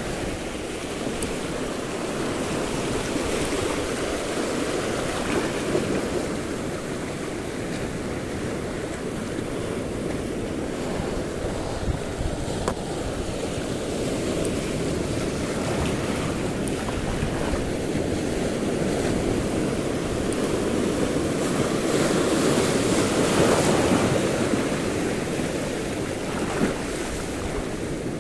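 Waves washing over a shallow reef near the shore, swelling and easing, loudest about three-quarters of the way through, with some wind on the microphone.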